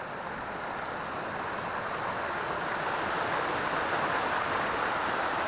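Rushing water of a hillside burn and its waterfalls: a steady noise that grows gradually louder.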